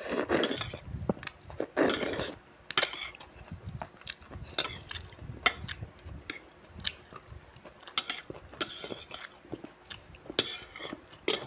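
Noodles slurped up twice in the first couple of seconds, then metal chopsticks clicking and scraping against a plate again and again, with chewing between.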